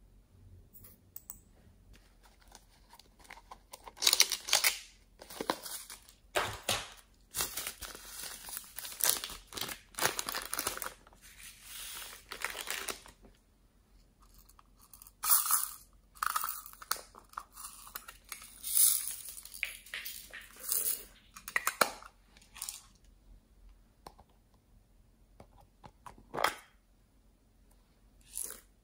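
Small plastic containers of slime add-ins being handled and opened: several bursts of dry handling noise with short pauses between.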